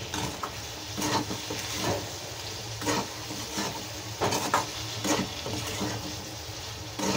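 Steel spatula stirring and scraping potatoes and tomatoes around a steel kadhai, with repeated scrapes and knocks about once or twice a second over a light sizzle of the frying oil.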